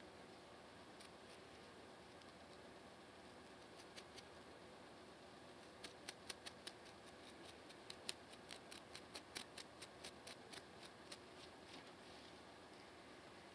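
Fingernails scratching a dry, flaky scalp between braids, making faint crisp scratching clicks. They are sparse at first, then come in a quick flurry from about six to eleven seconds in.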